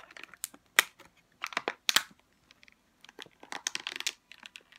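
Stiff clear plastic toy packaging crackling and crinkling in irregular bursts as a Lalaloopsy mini figure is worked out of it by hand, with one sharp crack just under a second in. The figure is hard to get out of the plastic.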